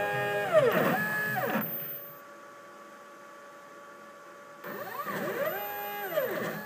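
Stepper motors of a CNC router moving a circuit-board test-probe head between positions: a whine that rises and falls in pitch as the axes speed up and slow down. One move ends about a second and a half in, a quieter stretch follows, and another move starts near five seconds.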